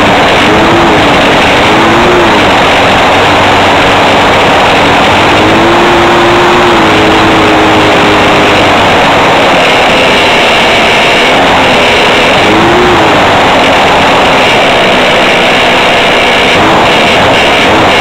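Calmato ultralight aircraft's engine and propeller running loudly, heard from inside the cockpit with wind noise, as the plane comes in low to land on a grass strip. The engine note briefly rises and falls a few times.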